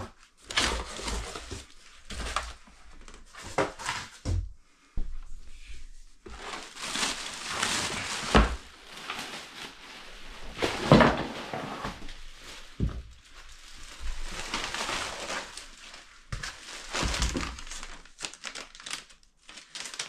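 Plastic bag crinkling and cardboard and foam packaging rustling as a boxed 3D printer is unpacked by hand, with a few dull knocks as parts are handled.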